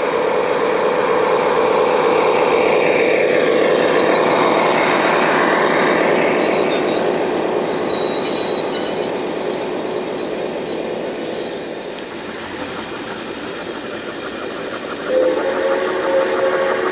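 Garden-scale model trains running on outdoor track: a steady rumble and rolling noise as a freight train passes close by, fading over several seconds. About 15 seconds in, a whistle of several steady notes starts up from the approaching smoking steam locomotive.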